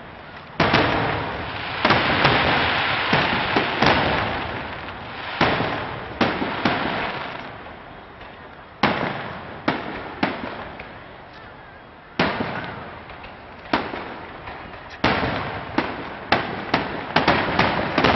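Aerial firework shells bursting: sharp bangs, each trailing off over a second or two. The bangs come in clusters, with a sparser stretch in the middle and a quick run of bangs near the end.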